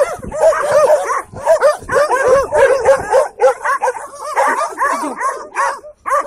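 A pack of mixed-breed dogs barking all at once: many overlapping high barks and yelps in quick succession, dropping off briefly just before the end.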